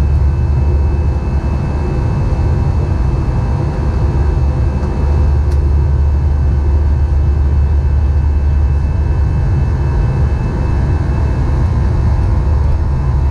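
Cabin noise inside an Airbus A321 in the climb after takeoff: a loud, steady low rumble of the jet engines and airflow, with a few faint steady whining tones above it.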